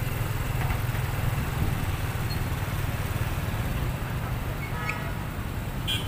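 Street traffic: cars and motorbikes driving past close by, with a steady low engine rumble.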